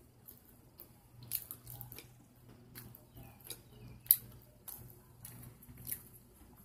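Close-up wet chewing and lip smacks from eating macaroni and cheese: scattered soft mouth clicks, with one sharper click about four seconds in.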